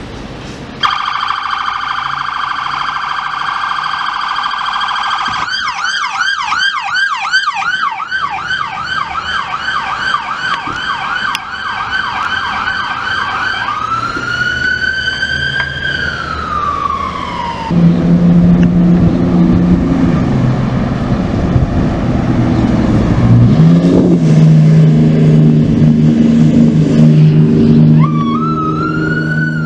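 Fire department emergency vehicles' electronic sirens: a steady tone, then a rapid yelp for several seconds, then one wail rising and falling. A big diesel engine of the responding fire apparatus follows, loud and low, rising in pitch once. Near the end a siren wail winds up again.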